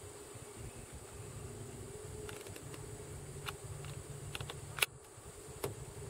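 Quiet outdoor background with a steady high-pitched drone and a low hum. Several sharp clicks come from about two seconds in, and the loudest is just before the five-second mark.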